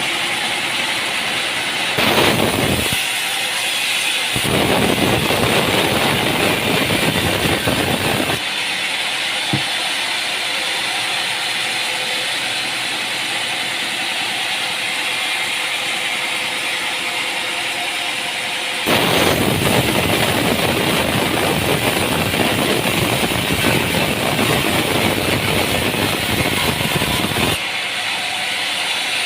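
Sawmill machinery running steadily, with three louder stretches of a saw cutting through timber: a short one about two seconds in, a longer one from about four to eight seconds, and a long one from about nineteen to twenty-seven seconds.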